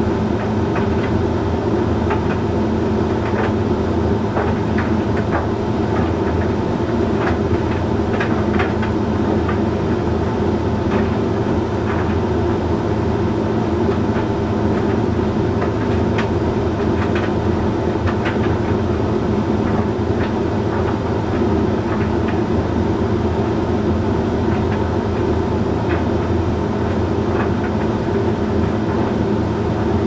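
Hoover Link X Care condenser tumble dryer running mid-cycle on a load of shirts: a steady motor, fan and turning-drum hum, with irregular light clicks and taps as the shirts tumble in the drum.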